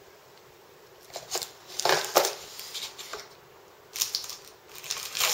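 Packaging being handled: short bursts of rustling and light clicks as small items are taken out of a box, in four or five separate spells after a quiet first second.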